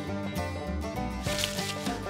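Background music: sustained instrumental notes over low bass notes.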